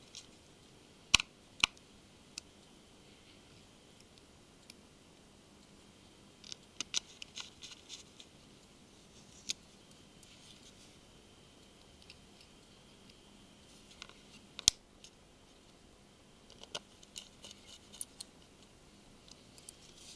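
Small metal clicks and ticks from a precision Phillips screwdriver picking up tiny screws and driving them into a Samsung Galaxy Note 2's plastic rear housing. The clicks come at irregular intervals, with a few sharper ones.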